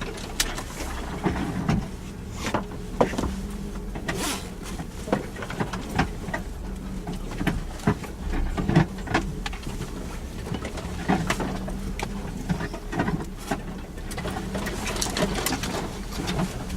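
Suzuki Jimny's engine running steadily at low speed off-road, with frequent irregular knocks and clatters as the vehicle jolts over rough ground.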